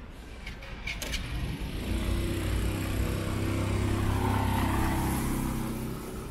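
A motor vehicle driving past close by. Its engine hum and tyre hiss swell to a peak about four seconds in, then fade.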